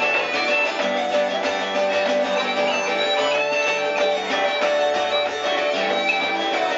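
Live acoustic band playing an instrumental passage with no singing: strummed acoustic guitar under a melody of held notes.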